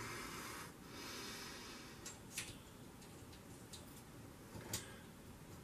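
Quiet handling noises: soft breathing for the first two seconds, then a few light clicks and taps as hands work the capillary-tube clips and the shelf inside the freezer, the loudest near the end.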